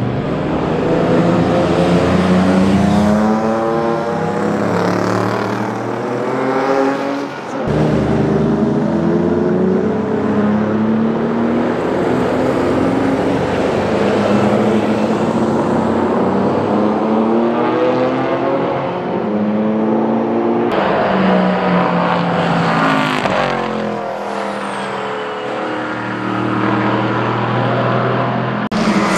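Historic racing car engines running at full throttle as the cars pass trackside, their pitch rising and falling. The recording cuts abruptly from one car to another about 8 and about 21 seconds in.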